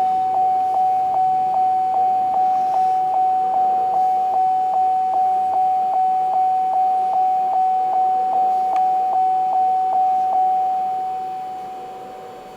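A truck's dashboard warning chime dinging over and over at a steady pace of nearly three a second, one clear pitch. It stops about ten seconds in and the last ding rings out and fades.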